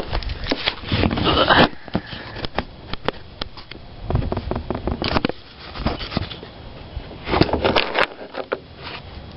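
Hand tools being handled while a torque wrench and socket are readied on a motorcycle's rear axle nut: irregular metallic clicks and scrapes, with three louder rustling, scraping bursts, one about a second in, one about five seconds in and one near the end.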